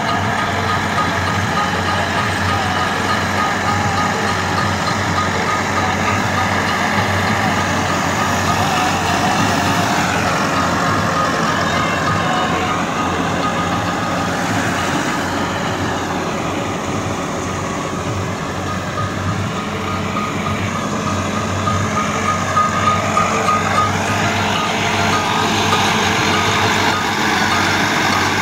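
Massey Ferguson 385 tractor's four-cylinder diesel running steadily under load while it drives a straw chopper (chamber machine) through wheat stubble. It is a constant engine drone with a steady high tone and machine noise on top.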